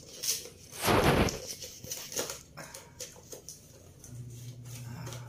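Cardboard Kinder Surprise Maxi box being handled and pulled open: rustling, scraping and small clicks of the cardboard, with one loud burst about a second in. A low steady hum comes in near the end.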